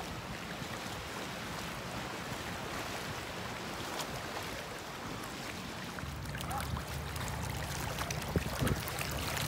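Shallow surf washing over a sandy beach, a steady rush of water noise. About six seconds in a low rumble joins it and the sound grows a little louder.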